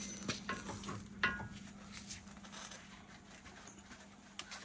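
A steel pry bar clinking and scraping against a car's front suspension as it is levered, with a short ringing metallic clink about a second in, then only faint ticks.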